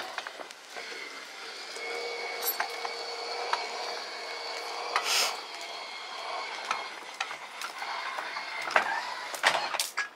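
Dometic power awning on an RV extending: a steady electric motor whine through the first half, with clicks and knocks from the awning arms and roller throughout, louder near the end.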